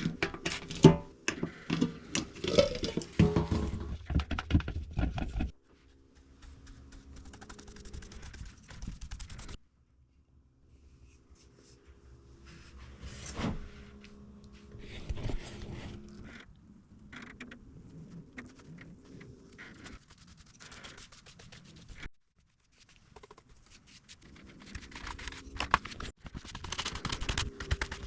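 Scrapes, knocks and thunks of hands-on work, heard in several short stretches that start and stop abruptly.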